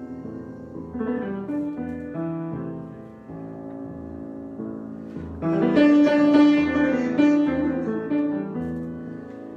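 Improvised solo piano: held notes and chords, moving every half second or so, with a louder, fuller passage about halfway through before it falls back.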